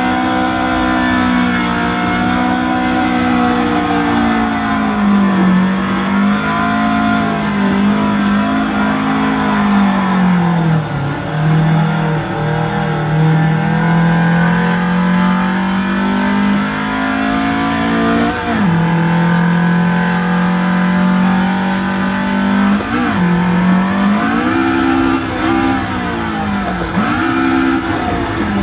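Car engine running hard at high revs, its pitch slowly rising and falling, with sudden drops and recoveries several times, as in gear changes or lifting off through a drift.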